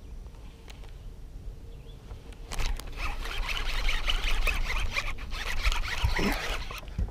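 Fishing reel cranked fast as a hooked bass is brought in: a quick, ratcheting rustle that starts about two and a half seconds in and runs about four seconds, with a thump near the end.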